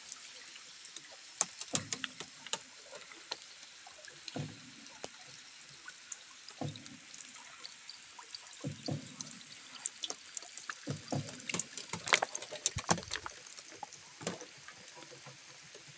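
Boatman's paddle stroking through the water of a cave river, a splash about every two seconds. Sharp drips and knocks sound in between.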